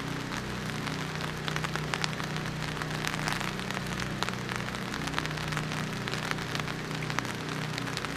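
Rain falling steadily, with many separate drops ticking sharply as they land, over a low steady hum.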